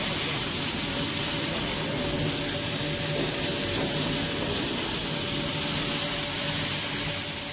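Continuous gas-heated corn nut roasting machine running, its steel mesh conveyor belt giving a steady mechanical rattle over a steady high hiss and a faint hum.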